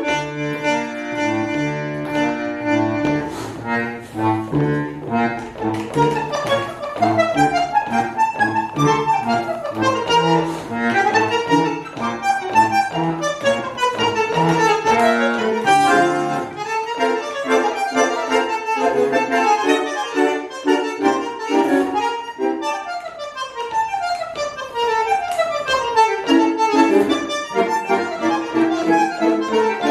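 Solo bandoneon playing a melody with its reedy, accordion-like tone over low bass notes. For a few seconds past the middle the bass drops out, leaving the higher melody alone. Quick runs of notes follow before the bass returns near the end.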